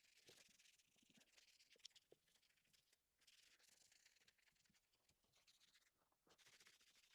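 Very faint scratching or rubbing strokes, coming in bursts of a second or two with short gaps between, and a few small clicks.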